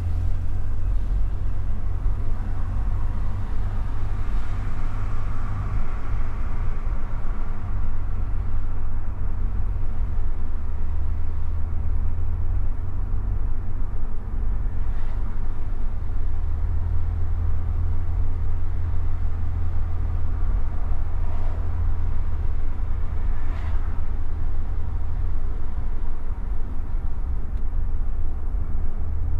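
Car driving along city streets: a steady low rumble of engine and road noise, with a swell of higher-pitched road noise a few seconds in.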